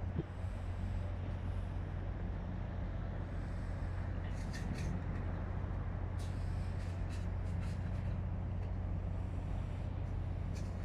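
An engine running steadily, a continuous low hum with a few faint clicks over it.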